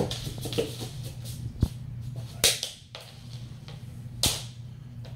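Play sounds from a child's bare feet on a hardwood floor and a swung cat wand toy: a few sharp slaps and quick swishes, about four in all, over a steady low hum.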